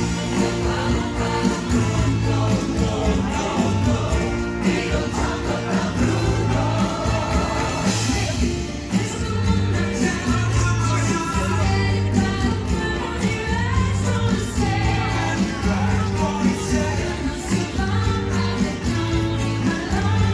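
Show soundtrack playing over the park's loudspeakers: an upbeat pop song with singing and choir voices over a steady beat.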